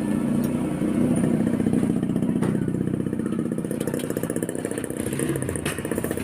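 A small motorcycle engine running close by amid street noise, its pitch shifting a little as it goes, with a couple of sharp clicks.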